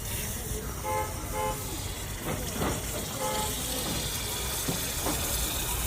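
Three short horn-like toots, two close together about a second in and a third about three seconds in, over a steady background hiss.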